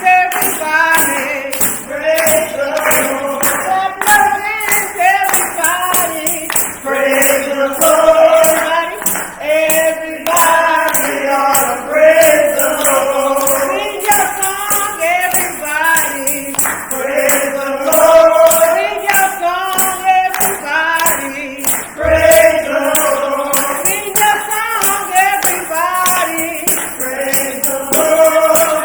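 Gospel song sung by voices with a tambourine shaken on a steady beat.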